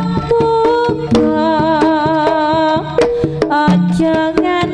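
Live Javanese jaranan gamelan music: frequent hand-drum strokes under held melodic notes, with a wavering, vibrato note from about a second and a half in to nearly three seconds.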